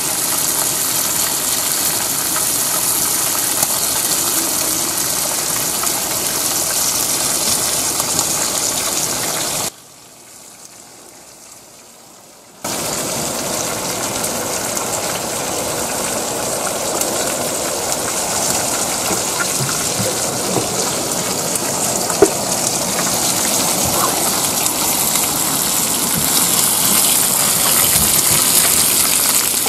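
Steady heavy rain hissing down on the lake and the boat. It drops out almost entirely for about three seconds about ten seconds in, then carries on.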